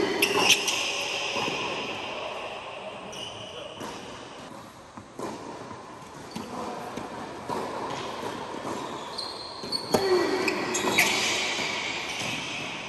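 Tennis doubles rally on an indoor hard court: sharp racket strikes and ball bounces echoing in a large hall, with short high shoe squeaks in bursts near the start and again about ten seconds in.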